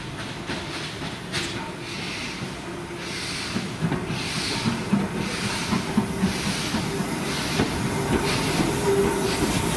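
BR Standard Class 4MT tank locomotive 80097 moving off with its cylinder drain cocks open, hissing steam. From about two seconds in there is a slow, regular exhaust beat of somewhat under two chuffs a second, and it grows louder as the engine draws near.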